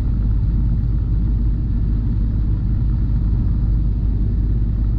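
Steady low rumble of a semi truck's engine and road noise while driving, heard from inside the cab.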